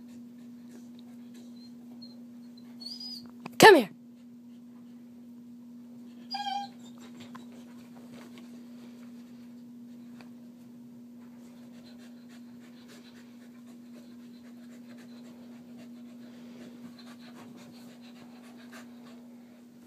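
Soft-coated wheaten terrier vocalizing: a faint high whine, then one loud, sharp yelp falling in pitch about three and a half seconds in, and a short whining cry a few seconds later. A steady low hum runs underneath.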